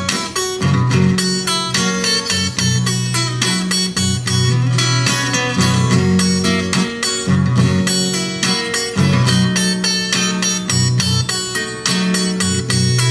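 Fingerpicked blues on a 12-fret acoustic guitar: a steady thumbed bass line under picked treble notes, played as a song intro.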